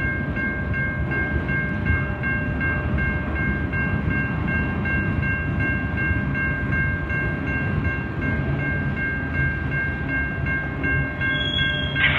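Freight cars of a mixed freight train rolling past: a steady rumble of wheels on rail, with faint steady high-pitched tones held over it.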